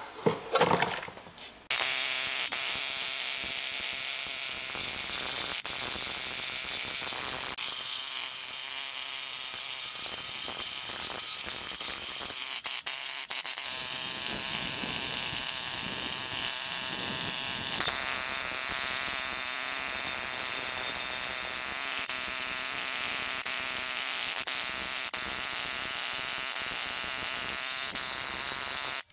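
Pneumatic needle scaler, an air hammer fitted with a bundle of steel needles, buzzing steadily against a rusty steel truck frame, breaking up loose rust and scale. It lets off briefly about twelve seconds in, then carries on.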